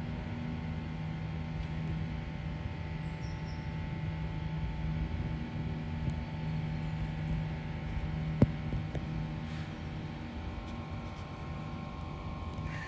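A steady low mechanical hum over faint background noise, with one sharp click about eight seconds in.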